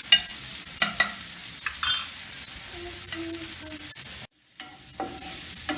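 Onion, garlic and curry leaves frying in butter and ghee in a pan, sizzling steadily while being stirred, with a spoon clicking against the pan several times in the first two seconds. The sound cuts out abruptly for a moment about four seconds in, then the sizzling resumes.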